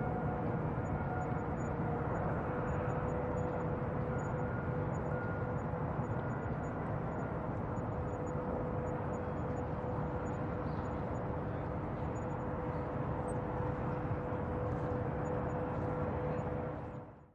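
Bayside ambience: a steady wash of rumbling noise with a constant hum running through it, fading out abruptly at the very end.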